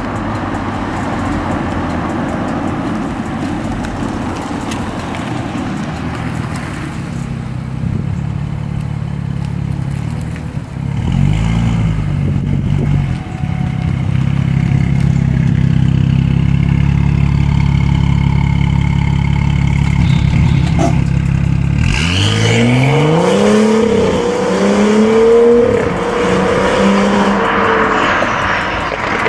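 BMW F30 335i's turbocharged N55 inline-six, running a catless downpipe, resonator delete and stock muffler: the car rolls up and idles steadily, then about three quarters of the way in pulls away hard, the exhaust pitch climbing, dropping at a gear change and climbing again before fading.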